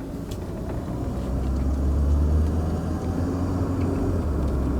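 A 2001 Volvo S40's turbocharged 1.9 L four-cylinder engine running, with car noise heard from inside the cabin: a steady low hum that swells a little about a second and a half in. The engine's misfire has been cured with new ignition coils and wires.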